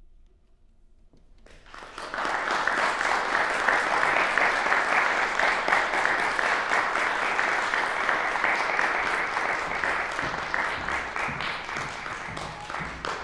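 Audience applause, breaking out about a second and a half in and continuing steadily, easing slightly near the end.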